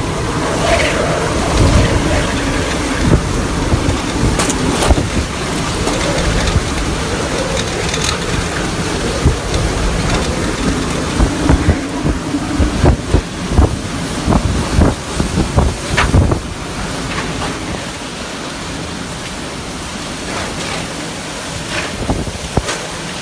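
Hurricane-force wind and driving rain buffeting the microphone in rising and falling gusts, with a wavering whistle through the first half and scattered knocks of debris.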